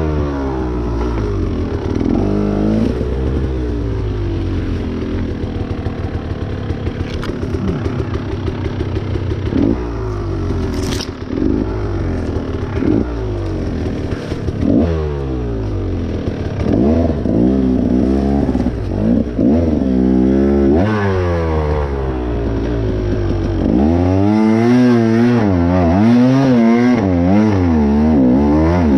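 Dirt bike engine ridden along a rough wooded trail, revving up and backing off again and again, with clattering from the machine over the ground.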